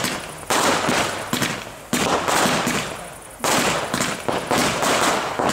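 Fireworks display going off in salvos of rapid bangs and crackle. Fresh salvos start about half a second in, near two seconds and about three and a half seconds in, each dying down before the next.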